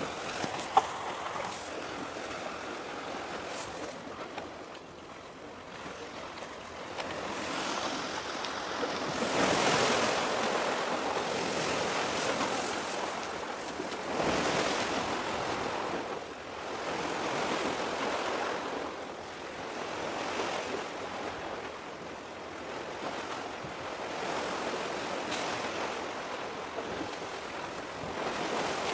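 Sea waves washing and breaking on the shore, swelling and fading every few seconds. A single sharp click about a second in.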